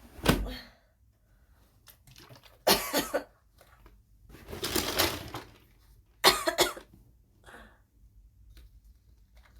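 A woman coughing in four bouts, the longest about halfway through, with quiet gaps between. The coughs are brought on by heavy phlegm.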